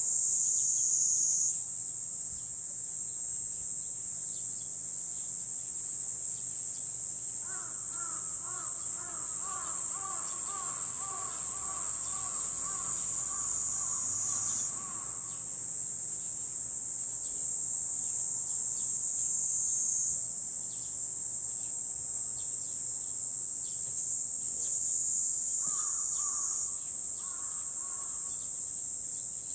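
Loud, steady, high-pitched drone of an insect chorus that swells and eases a few times. Partway through, a bird calls over it repeatedly for several seconds, and it calls twice more briefly near the end.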